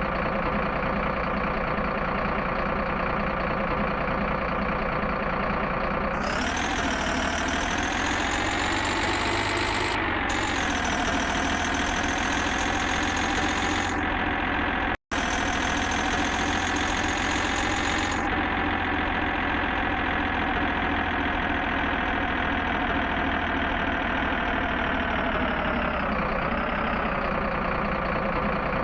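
Engine idling steadily, like a truck, with small dips and rises in pitch; the sound cuts out for an instant about halfway through.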